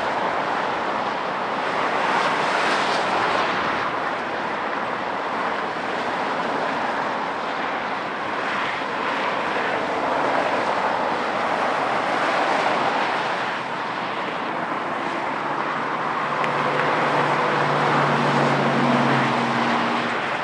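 Jet noise of a climbing Airbus A330-243's two Rolls-Royce Trent 700 turbofans at departure thrust: a steady broad rush that swells and eases gently. In the last few seconds a lower, steady-pitched hum joins in beneath it.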